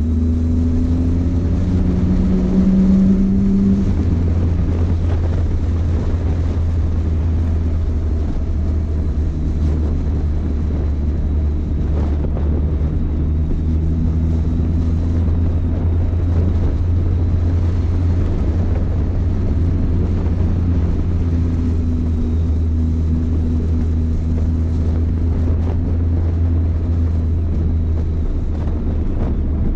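Motorcycle engine running at a steady cruise under a heavy low rumble. The engine note rises briefly about two seconds in, then drops back and holds steady.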